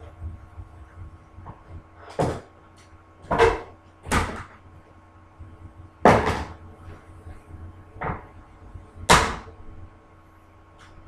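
Sharp knocks and clatters of hand work at a wooden wall and bench, about six of them at uneven gaps of one to two seconds.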